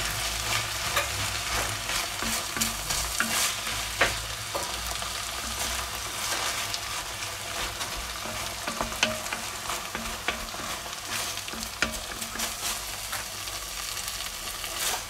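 Diced vegetables with tomato paste sizzling as they sear in fat in a cocotte, stirred with a wooden spoon that scrapes and clicks against the pot. A steady frying hiss with frequent short knocks of the spoon.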